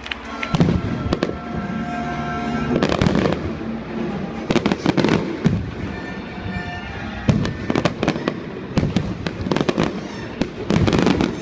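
Fireworks show: a long run of sharp bangs and crackling bursts, many in quick clusters, with music playing underneath.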